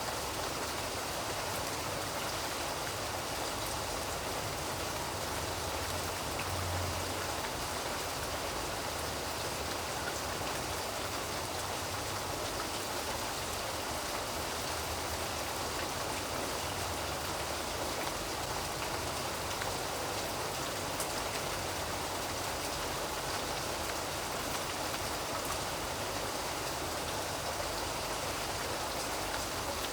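Steady heavy rain falling and pattering on surfaces, an even, unbroken hiss.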